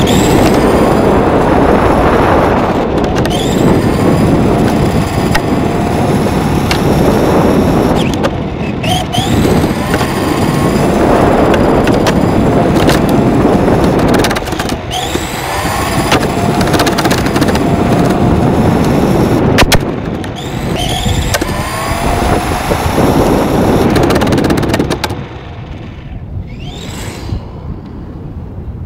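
On-board sound of a Tamiya TA-05 IFS RC car with a 540 electric motor: rough rumble of the tyres and chassis on the court surface, with the motor and gear whine rising again and again as it speeds up. About 25 seconds in the rumble drops away as the car comes to rest, leaving a quieter hiss.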